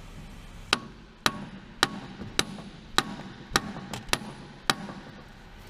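Hammer striking metal, about nine sharp blows roughly every half second, each with a short metallic ring, knocking the CV joint off a Honda Civic's drive shaft.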